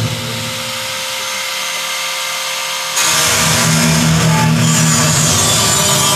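Experimental noise music: a dense, steady drone of grinding, motor-like noise with a few held tones over it. It jumps sharply louder about three seconds in.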